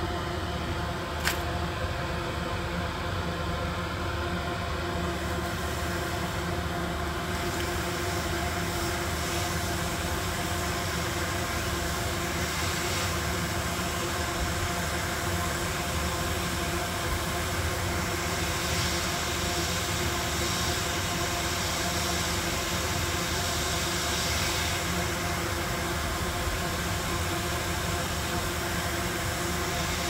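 Hot air rework station blowing steadily: a constant fan hum with an airy hiss that grows stronger about seven seconds in, as the nozzle works over the circuit board. A single sharp click near the start.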